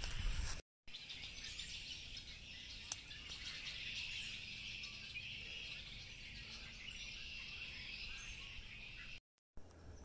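Faint, dense chorus of birds chirping, even and continuous, with one sharp click about three seconds in. The sound drops out briefly at two edit cuts near the start and end.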